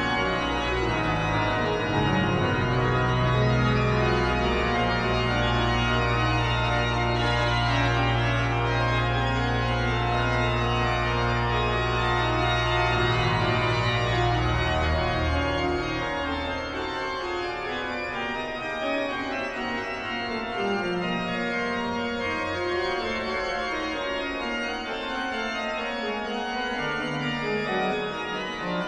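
Pipe organ playing slow, held chords over a deep sustained bass. The bass stops about halfway through, leaving softer chords.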